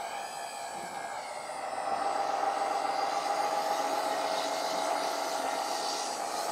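1/12-scale T150K RC tractor running, a steady mechanical hum with a whine that rises and falls in the first second and a half, getting louder about two seconds in.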